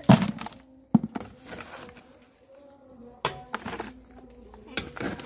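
A steel bowl scooping wet small fish out of a plastic crate and tipping them into a plastic bucket: a handful of knocks and wet rustles, the loudest right at the start.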